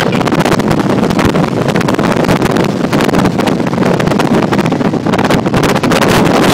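Wind rushing and buffeting against the microphone on a moving motorcycle, with the motorcycle running underneath at a steady speed. Loud and steady, with constant fluttering gusts.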